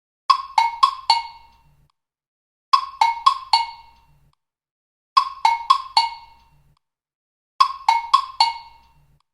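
TikTok notification ringtone: a short phrase of four quick percussive notes, played four times about two and a half seconds apart.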